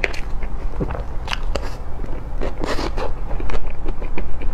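Close-miked mouth sounds of eating cream cake: a run of small wet clicks and lip smacks from chewing, with a few louder smacks.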